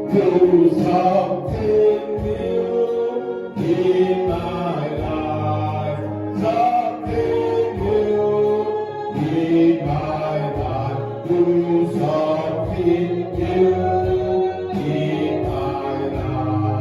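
Gospel worship song: a group of voices singing held notes over instrumental backing with a steady low beat.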